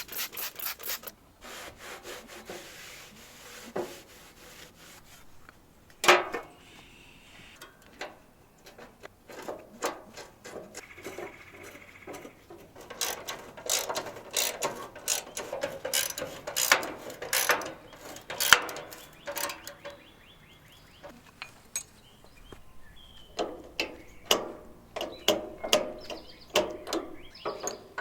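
Mechanic's hand tools working on a garden tractor: irregular metal clinks, scraping and ratcheting, with one sharp knock about six seconds in.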